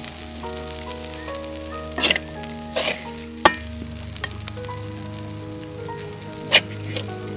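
Metal spatula scraping and knocking against an aluminium wok and a ceramic bowl as fried rice is scooped out, with four sharp clinks about 2, 3, 3.5 and 6.5 seconds in. Background music of held notes plays under it.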